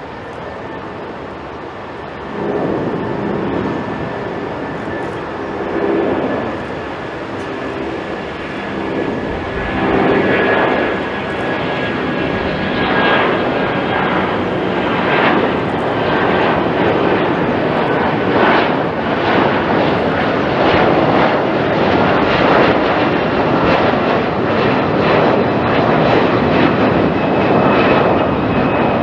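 Cathay Dragon Airbus A330-300's twin Rolls-Royce Trent 700 turbofans at climb power as the jet passes close overhead after takeoff. The roar builds about two seconds in, with a steady high whine, and turns into a loud crackling rumble from about ten seconds in.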